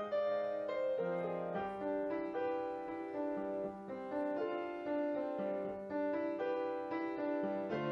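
Background piano music, a melody of single notes over held lower notes.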